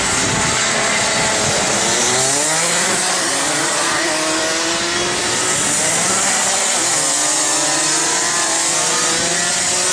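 Several racing kart engines revving as the karts pass on a wet track, their pitches rising and falling and overlapping, over a steady hiss of spray from the wet track.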